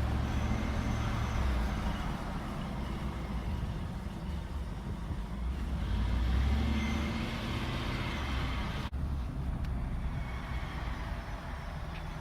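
Motor vehicle noise: a steady low rumble that swells about six to seven seconds in, with a brief dropout about nine seconds in.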